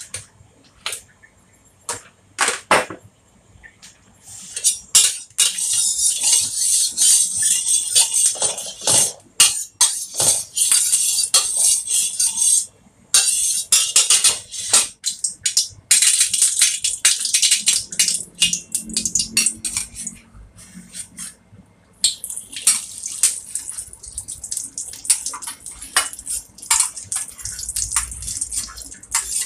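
Oil sizzling in a hot stainless steel wok, starting about four seconds in with two short breaks, while a metal wok spatula scrapes and taps against the pan.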